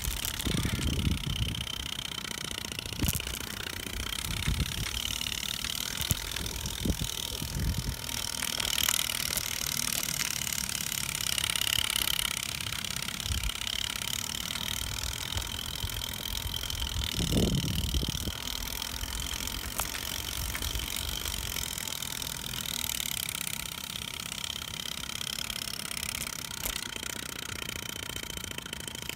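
Wind and handling rumble on a phone's microphone while moving along a paved path, over a steady high hiss. The low rumble is strongest at the start and again about halfway through.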